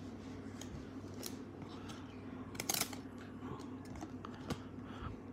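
Glossy 1992-93 Stadium Club basketball cards being slid and flipped through by hand: soft scrapes and light clicks, with a louder flurry of card snaps about two and a half seconds in. A faint low hum sits under it.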